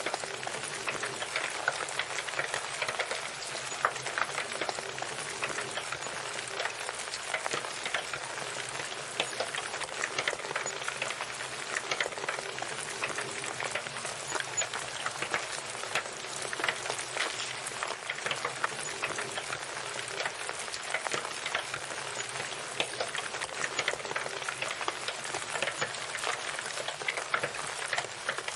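Heavy rain falling hard and steady, a dense patter of countless drops hitting a surface.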